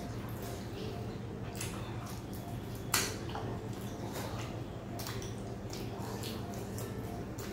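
Close-up eating sounds: fingers squishing through curry-soaked luchi and egg in steel plates, with chewing and a string of small wet clicks, the sharpest about three seconds in.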